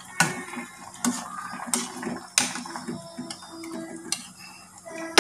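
Metal ladle clinking and knocking against a metal saucepan while stirring a pot of broth: about six separate clinks roughly a second apart, some briefly ringing.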